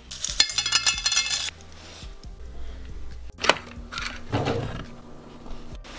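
A rapid clattering rattle of many small hard pieces for about a second and a half, then a sharp knock and a shorter burst of handling clatter.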